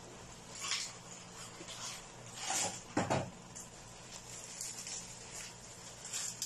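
Diced apple pie filling simmering in a pan, its thick sugary sauce bubbling and crackling as the liquid cooks off, with a few louder pops near the middle. A low steady hum runs underneath.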